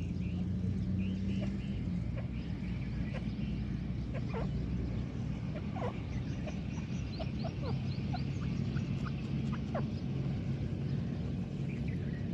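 Faint scattered chirps and short calls of small birds over a steady low hum.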